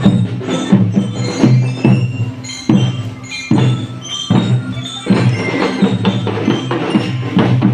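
Loud music with percussion: sharp knocking strikes keeping a steady beat under ringing pitched notes.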